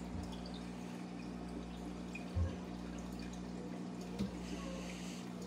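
Aquarium water dripping and trickling over a steady low hum, with a dull knock about two and a half seconds in and a smaller one near four seconds.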